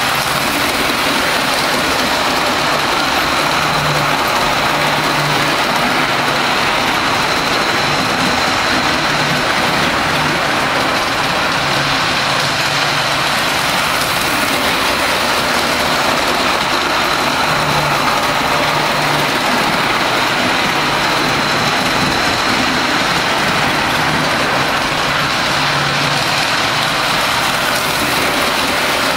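G-gauge model steam locomotive, a Mallet, and its freight train running on the layout track: a steady loud rumble of wheels and drive, with a thin high whine throughout and a low hum that comes and goes.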